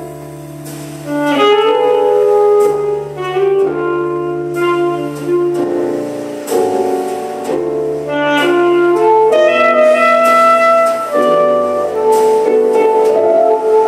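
A saxophone plays a slow jazz melody live over a backing track of sustained chords and bass. The accompaniment starts just before, and the saxophone enters strongly about a second in.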